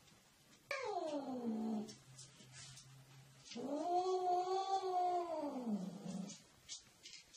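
Domestic cat yowling during mating: two drawn-out caterwauls. The first drops steeply in pitch. The second, about a second later, is longer and rises, holds, then falls away.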